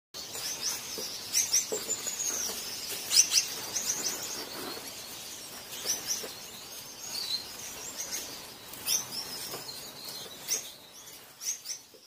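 Gouldian finches calling: short, high chirps and twittering notes that come in quick clusters every second or two.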